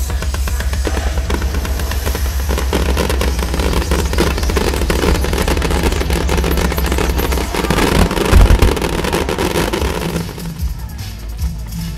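Dense fireworks barrage: rapid crackling and popping shell bursts over a deep rumble, mixed with show music, with one especially loud bang about eight seconds in. The firing thins out near the end, leaving mostly the music.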